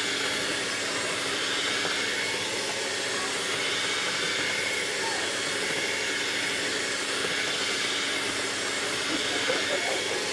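Electric hand mixer running at a steady speed, its beaters churning thick cream cheese batter, with a constant motor hum and whirr.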